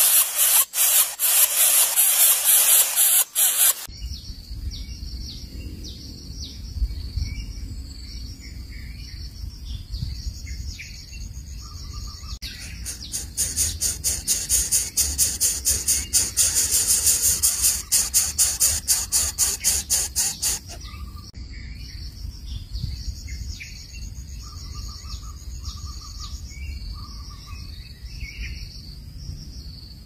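Greater coucal nestlings begging in the nest: bouts of rapid, high, pulsing hissing, loud at the start and again in the middle, with soft short chirps between.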